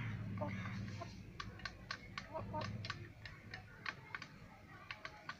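Chickens' beaks pecking rice from a metal bowl: quick, irregular clicks and taps, with a low hum beneath during the first half.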